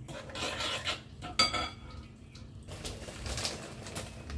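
Metal spoon stirring and scraping a liquid marinade in a cut-glass bowl, with one sharp ringing clink of spoon on glass about a second and a half in. A plastic bag of chopped parsley rustles in the second half.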